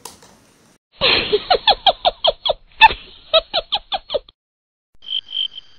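Added sound effect: a rapid run of short, squeaky pitched chirps, about four a second, then a pulsing high beeping tone near the end.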